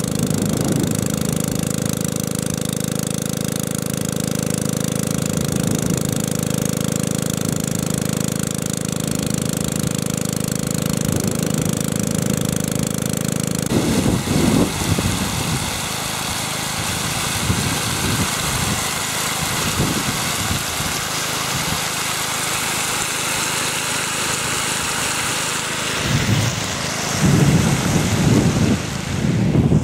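Briggs & Stratton Intek 190 small engine running steadily, driving a Pacer water pump that has just been rebuilt. About halfway through, water rushes out of the discharge hose over the fainter engine hum, and low rumbles of wind hit the microphone near the end.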